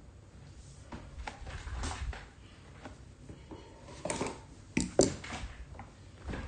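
Handling noise: a stretch of rustling about a second in, then several sharp knocks and clacks, the loudest about five seconds in.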